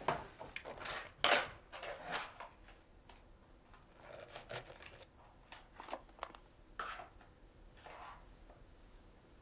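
Crickets chirping steadily as night ambience. Irregular short scratching and rustling sounds come over it, loudest in the first two and a half seconds and sparser after.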